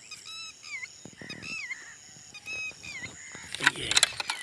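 A bird calling repeatedly in short pitched notes that bend downward, over a faint steady high insect whine. Near the end a quick cluster of loud clicks and rattles is the loudest sound.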